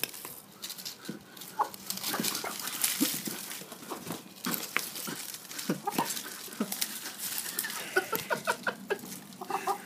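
Hens clucking with short calls, and a quick run of clucks near the end, over the scratching and scraping of a hand cultivator turning loose soil.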